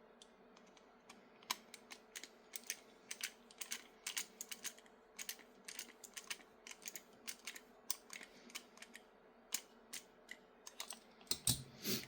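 Faint, irregular small clicks and taps, several a second, of a hex driver working an M2 screw into a 3D-printed plastic RC car chassis, with a couple of louder knocks near the end.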